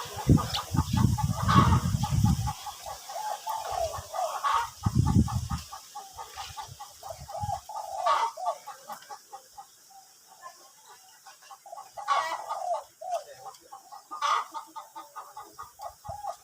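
Spotted dove cooing in repeated phrases, with louder calls about halfway through and again near the end. Low rumbling bumps come in the first few seconds.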